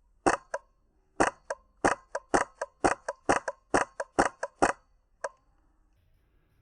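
HPA-powered airsoft rifle (Polarstar Kythera mechanical engine) firing a quick string of sharp pops, about three to four a second, stopping about five seconds in.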